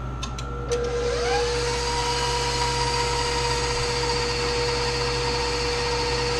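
KitchenAid stand mixer creaming butter and sugar; its motor speeds up about a second in, its whine rising in pitch, then runs steadily. A few light clicks come just before the speed-up.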